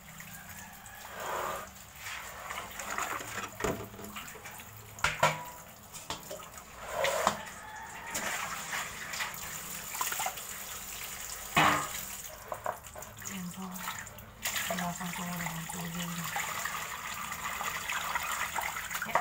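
Tap water running into a plastic basin of soaking vegetables, with splashes and knocks from time to time as hands move the vegetables in the water. The water runs steadily through the last few seconds.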